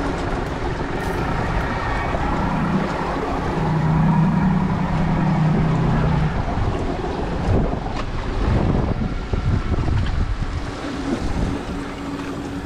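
Wind buffeting the microphone over water sloshing around a small boat, with a low steady hum for a few seconds partway through.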